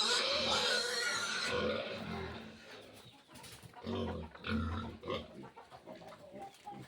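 Piglets squealing loudly for about a second and a half, followed by a few lower pig grunts around four seconds in.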